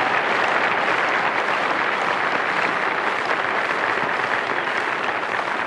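A large crowd applauding steadily, easing off slightly near the end.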